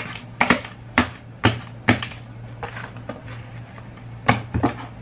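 Irregular sharp clicks and knocks of things being handled on a desk, a cluster in the first two seconds and a few more near the end, over a steady low hum.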